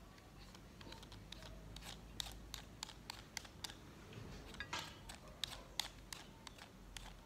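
Vegetable peeler scraping along a carrot, a quick series of short strokes, about two to three a second.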